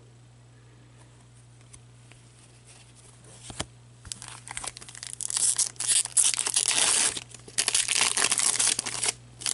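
Hockey card pack wrapper being crinkled and torn open by hand: a few quiet seconds of light handling over a steady low hum, then from about four seconds in a run of loud crackling and tearing bursts.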